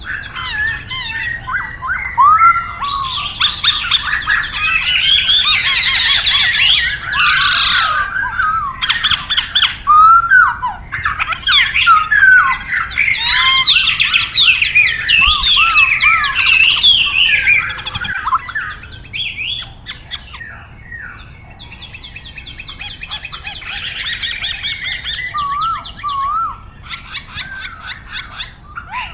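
Hong Kong poksay singing and chirping: a rapid run of varied whistled notes and harsher chirps in long loud bursts, quieter and sparser from about two-thirds of the way through.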